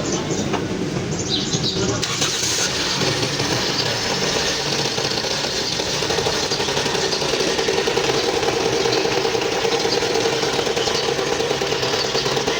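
Toyota Corolla GLI engine running steadily with a fast, even rattle, the kind of noise that could come from a worn or loose timing chain.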